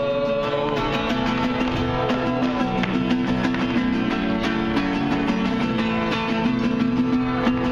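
Background music led by a plucked guitar, with steady held notes beneath frequent plucked or strummed strokes; it cuts off abruptly at the end.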